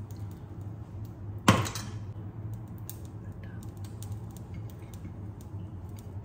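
Kitchen crockery being handled: one sharp clatter about a second and a half in that rings briefly, with a few faint small clicks around it over a low steady hum.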